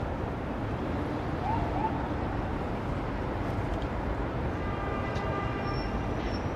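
Manhattan street din: a steady wash of city traffic noise. A brief pitched sound with several tones sits on top of it for about two seconds near the end.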